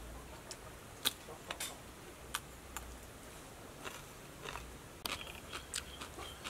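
A person biting and chewing food, most likely a crisp piece of raw green vegetable dipped in sauce: a scatter of short, crisp crunches and mouth clicks.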